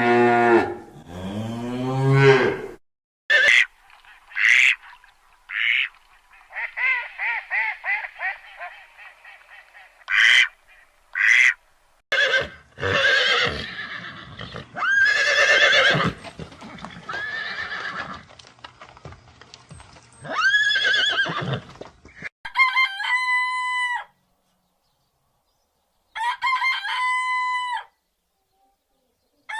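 A run of different farm animal calls one after another: a low moo trailing off at the start, then a series of short honks and quacks from waterfowl, with one fast run of repeated calls. Near the end come two long, steady held calls with a pause between them.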